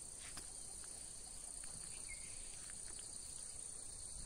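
Insects chirring in a steady, faint, high-pitched drone, with an even pulsing layer beneath it and a few faint ticks.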